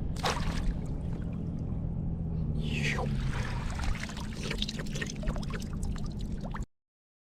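Water splashing and trickling over a steady low hum, with one splash about a quarter second in and another about three seconds in, then many small crackling drips. The sound cuts off abruptly near the end.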